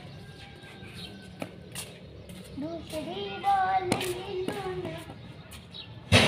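A child's voice in drawn-out, sung tones for a couple of seconds mid-way, over scattered light taps. Near the end comes a single sharp, loud knock that rings briefly.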